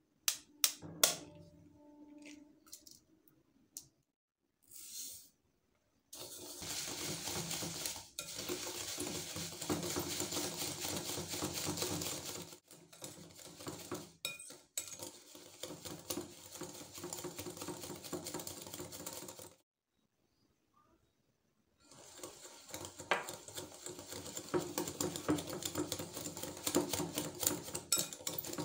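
An egg cracked on the rim of a glass bowl with a few sharp taps, then a wire whisk beating the egg mixture in the glass bowl: a fast, steady clatter of the wires against the glass, broken by a pause of about two seconds past the middle.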